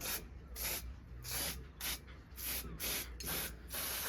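Spray cleaner being squirted onto an engine in short hissing bursts, about two a second, with one longer spray near the end.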